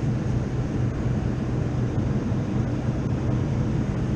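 Walk-in cooler's evaporator fans running: a steady rush of moving air over a low, even motor hum.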